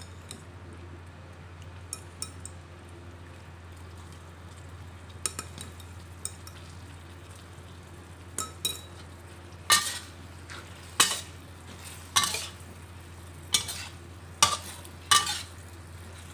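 Metal spatula scraping and knocking against a steel wok during stir-frying, with a faint sizzle and a steady low hum underneath. The scrapes are sparse at first, then come louder and closer together in the second half.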